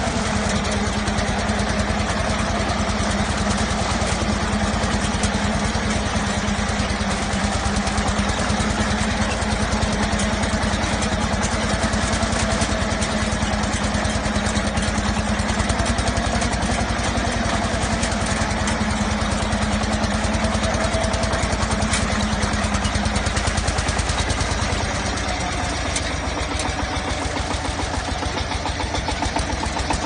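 Small tractor's engine running steadily as it drives a front-mounted reaper through standing crop. The steady engine tone fades out about three-quarters of the way through and the overall level dips slightly.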